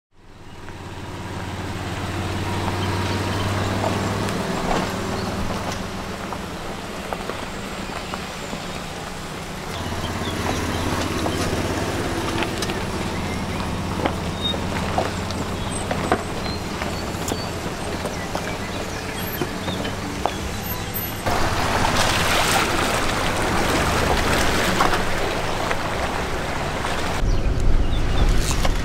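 A 4x4 SUV driving slowly over a rocky dirt track: a steady low engine hum with scattered knocks and clicks from the tyres and body on the rough ground. The sound changes abruptly a few times, with a stretch of louder hiss about two-thirds through and a deeper rumble near the end.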